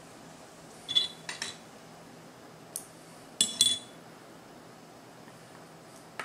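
Small metal fly-tying tools clicking and clinking: a pair of sharp clicks about a second in, a single one shortly before the middle, a louder cluster of clinks around the middle, and two more at the very end, each with a brief metallic ring.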